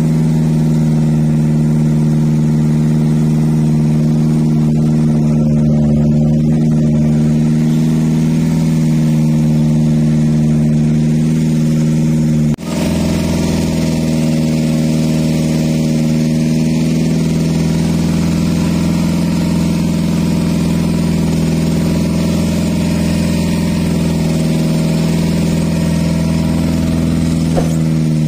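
A fishing boat's engine running steadily at a constant speed, loud and even, with a brief break about twelve seconds in.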